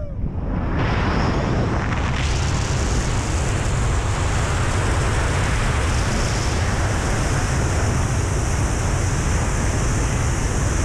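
Loud, steady rush of freefall wind buffeting a helmet-mounted action camera's microphone during a BASE jump, with a heavy low rumble. It swells over the first two seconds as the fall picks up speed, then holds steady.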